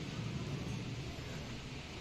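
Steady hiss with a low hum underneath: constant background noise.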